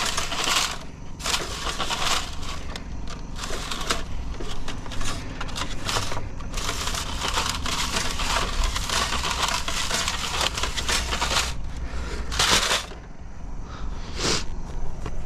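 Excavator digging in stony soil: a diesel engine running steadily under irregular crunching and scraping of dirt and rock.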